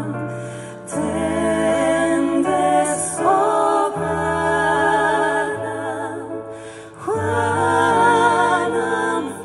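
Two women singing a slow Christmas song live in harmony, with vibrato on long held notes, over low sustained accompaniment notes that change every few seconds. Two of the phrases end and new ones begin about a second in and about seven seconds in.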